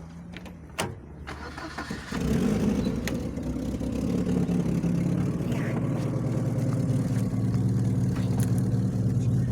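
Car engine heard from inside the cabin, quiet at first, then growing suddenly louder about two seconds in and running on with a steady low hum as the car gets under way. A couple of faint clicks come before the engine swells.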